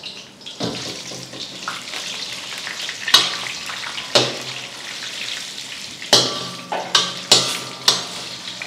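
Black peppercorns and hard asafoetida frying in oil in a steel kadai, sizzling steadily. A perforated steel ladle stirs them, giving several sharp clinks and scrapes against the pan, some with a short metallic ring.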